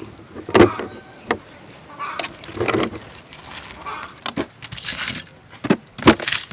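Crabs handled by hand, their shells clattering and scraping against a glass jar and a stainless-steel colander. A handful of sharp knocks and clicks stand out, the loudest about half a second in and just after six seconds.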